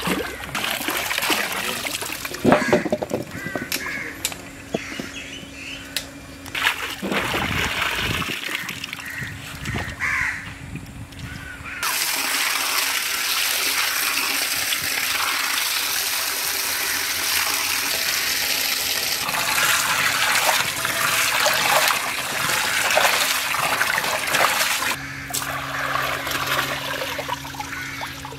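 Water splashing and trickling, with crows cawing in the background.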